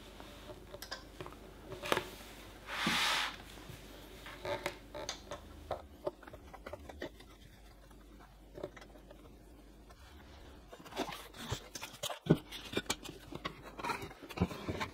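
Small handling sounds of 3D-printer assembly: scattered light clicks and knocks as a hex key is worked on screws in the printer's metal base, with a short scraping rasp about three seconds in and a busier run of knocks near the end.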